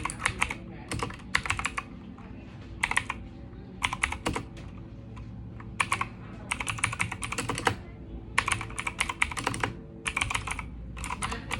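Typing on a mechanical keyboard with clicky blue switches: irregular runs of sharp keystroke clicks in quick bursts with short pauses between them.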